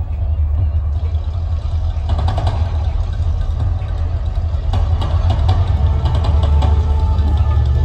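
Outdoor volcano show's sound system playing a deep, steady rumble under music as its red-lit jets erupt.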